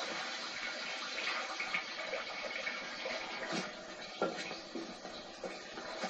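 Steady rushing hiss from a K7 steam ploughing engine, easing off in the second half, with a couple of sharp knocks.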